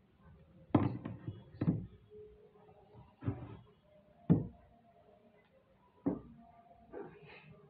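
Several sharp plastic clacks and knocks as a Rubik's cube is handled and set down on a desk, about six at uneven spacing, the loudest about four seconds in.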